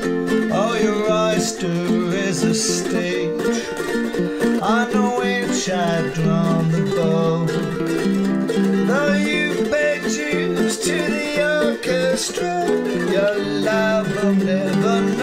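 Two ukuleles playing an instrumental break: one strums or picks steady chords while the other plays a picked lead melody, with some notes sliding in pitch.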